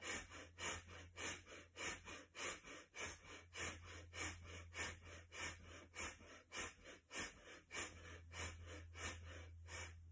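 A woman's rapid, forceful rhythmic breathing, about two sharp breaths a second, in a yoga breathing exercise where each breath goes with a pump of the arms. A faint steady low hum lies underneath.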